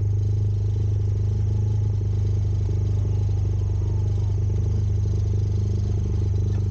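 Engine of an X-PRO Storm running steadily at an unchanging pitch, as at a constant throttle, with a rattly clatter over it.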